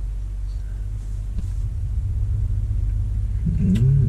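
Steady low rumble inside a parked car's cabin, with a brief vocal sound near the end.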